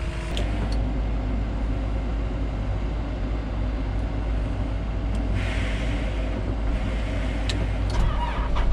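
Cat track skid steer's diesel engine idling steadily while it warms up, with a few light clicks and a brief hiss a little past halfway.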